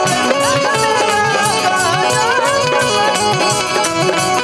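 Live Bhojpuri stage-band music: an ornamented melody line that bends in pitch, played over a fast, steady drum beat.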